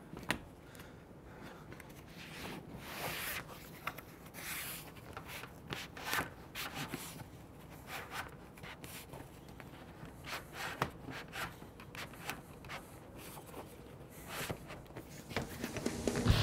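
Fabric-and-plastic rubbing and scraping as the rear curtain's bottom edge is slid along the channel of a Bestop Trektop soft top's tailgate bar, in short irregular strokes with a few light clicks. Music fades in near the end.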